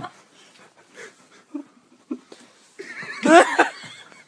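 A young woman laughing in short, broken giggles, then a louder high-pitched fit of laughter about three seconds in.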